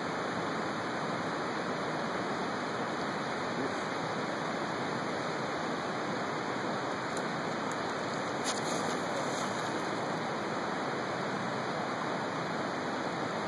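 Steady, unbroken rushing noise at an even level throughout.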